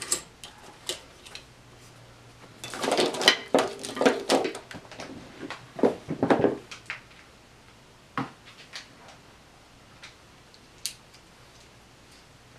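Items being handled and set down on a tabletop: a run of knocks and clatter a few seconds in, then a few single taps further apart.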